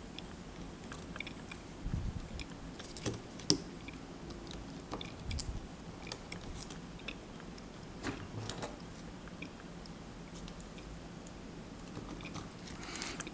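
Small clicks, taps and crinkles of fingers handling a PDA's circuit board and its foil-pouch lithium battery, scattered and irregular, with a brief rustle near the end.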